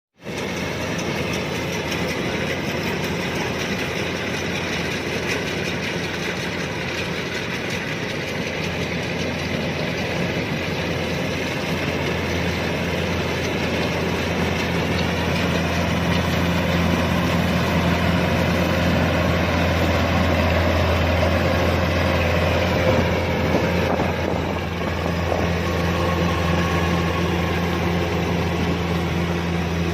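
Kubota DC-105X combine harvester running with a steady, loud mechanical drone and a strong low hum. It grows somewhat louder through the middle, dips briefly a few seconds before the end, then carries on.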